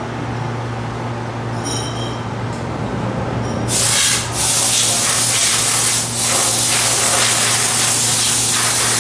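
Steady low machine hum; about four seconds in, a loud, even hiss starts and carries on, dropping out briefly twice.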